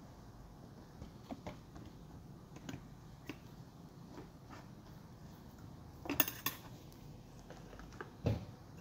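A metal fork tapping and scraping against food and a paperboard takeaway box, in light scattered clicks, with a louder cluster of taps about six seconds in and a dull knock near the end.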